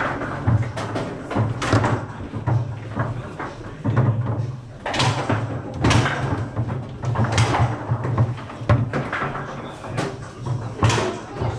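Foosball table in play: irregular sharp knocks and clacks of the ball being struck by the rod figures and hitting the table walls, with rods rattling between shots over a steady low hum.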